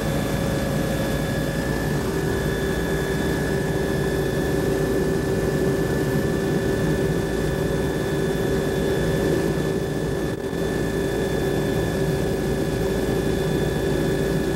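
Steady engine drone of the survey aircraft, heard from inside the cabin, with a constant mid-pitched hum and a fainter high whine. The level dips briefly about ten seconds in.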